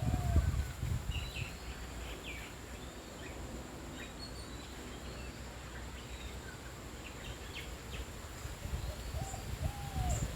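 Wild birds calling: scattered short, high chirps throughout, with short arching low calls right at the start and a run of them again near the end, over a low rumble.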